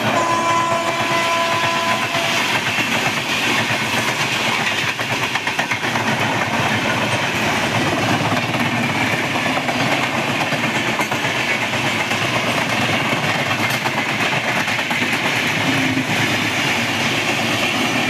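LHB passenger coaches running at speed over the track, a steady, loud rail and wheel noise. A train horn sounds for about the first two and a half seconds.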